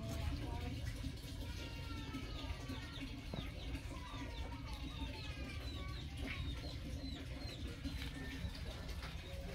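Birds chirping in a quick run of short, falling calls over a steady low background noise.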